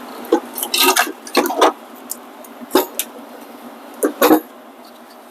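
Irregular metal clicks and knocks of hand tools and engine parts being handled during engine teardown, with a loud double knock about four seconds in.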